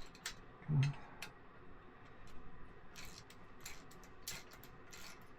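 Faint, scattered clicks and light metallic ticks of small parts and hand tools as an Autoterm/Planar diesel heater is taken apart, with a short vocal grunt a little under a second in.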